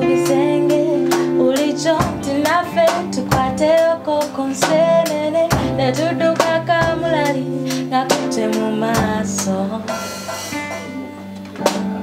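A pop song: a woman singing over guitar and keyboard, with a steady beat of drum hits.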